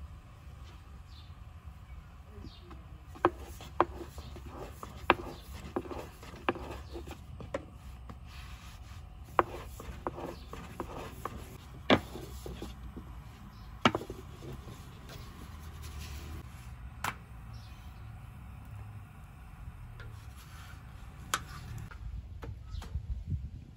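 Thin wooden rolling pin rolling and rubbing over dough on a round wooden board, with sharp wooden clicks and knocks now and then, about eight in all.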